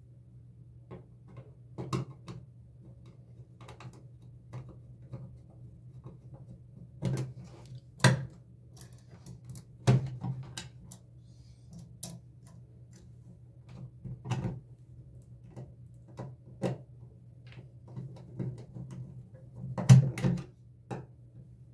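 Irregular clicks and light knocks of a screwdriver and screws as a wall light switch is screwed back into its electrical box, with a sharper knock about 8 seconds in and a cluster about 20 seconds in.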